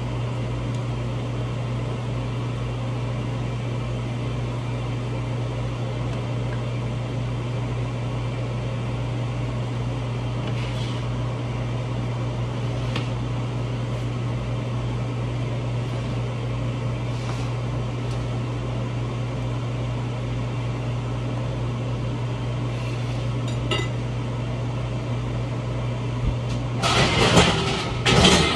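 Steady low mechanical hum of a kitchen appliance or fan. A few faint knife ticks come in the middle. Near the end there is a loud burst of clattering as metal baking pans are handled.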